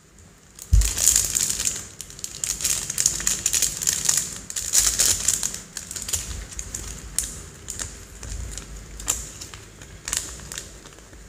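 Clear plastic bags of building-brick pieces crinkling and crackling as they are handled and opened, thickest in the first half and then in scattered crackles, with a low thump about a second in.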